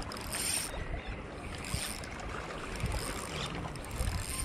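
Wind buffeting the microphone over lapping water, as a spinning reel is wound in on a hooked fish.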